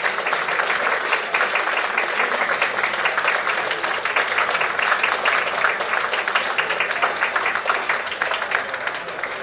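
Audience applauding: dense, steady clapping that begins to thin and fade near the end.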